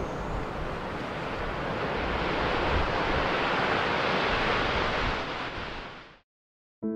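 Steady sea surf, an even wash of wave noise that fades out about six seconds in. After a moment of silence, piano music starts near the end.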